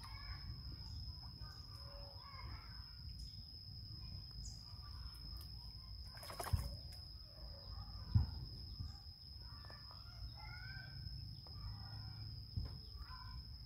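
Faint, short clucking bird calls, like chickens, scattered throughout over a steady high-pitched tone. Two brief knocks about halfway through, two seconds apart, the second louder.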